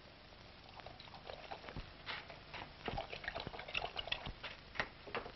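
Dog eating from a bowl: faint, irregular clicks and short smacks over a hissy old film soundtrack.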